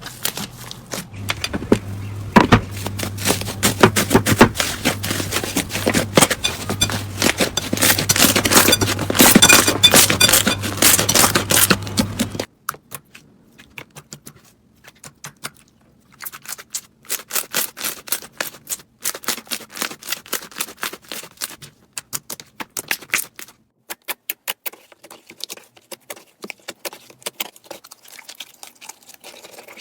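Slime being squeezed and pressed by hand, giving runs of crackling clicks and pops. A low hum sits under the first part, which then gives way to sparser bursts of crackles.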